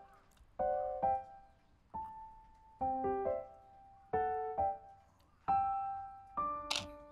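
Slow, gentle solo piano music: sparse chords and single notes struck about once every second or so, each left to ring and fade.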